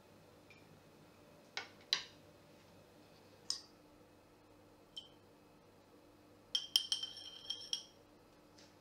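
A few separate clinks and taps of kitchenware, then near the end a metal teaspoon stirring liquid in a glass bowl, clinking against the glass several times in quick succession with a ringing tone.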